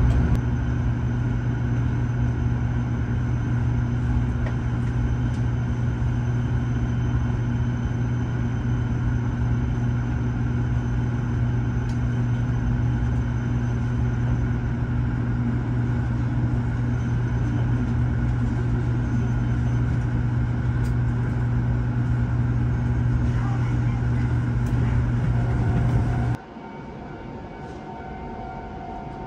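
Steady low hum from an E7-series shinkansen train. The hum cuts off abruptly near the end, leaving a quieter hum with a faint steady tone.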